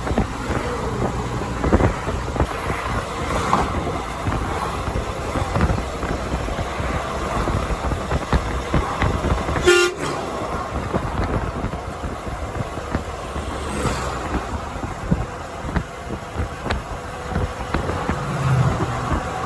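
A truck running on the highway with a steady rumble of road and engine noise. One short toot of the truck's horn comes about ten seconds in.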